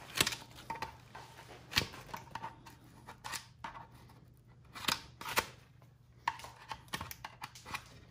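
Handling noises from a foam coyote taxidermy form being turned over and checked: scattered sharp taps and clicks with short scrapes and rustles between them.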